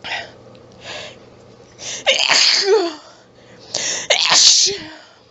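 A person sneezing twice, about two seconds apart, with short hitching in-breaths before each. The sneezes are harsh and throaty, part of a fit driven by a nasal tickle that won't stop.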